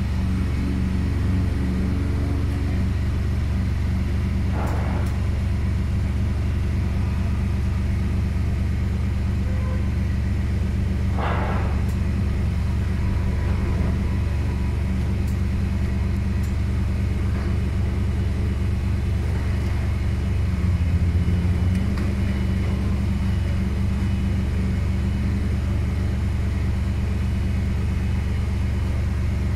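Genie Z-45/25J articulating boom lift running, a steady low hum from its power unit while the boom is operated, which dips in pitch and swells briefly about twenty-one seconds in.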